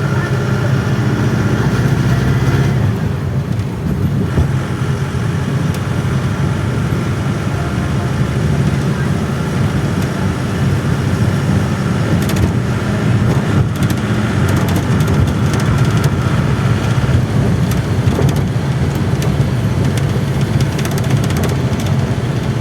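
Volare A6 micro-bus motorhome driving, heard from inside the cabin: a loud, steady engine and road drone with a few short rattles, recorded raw with no noise suppression.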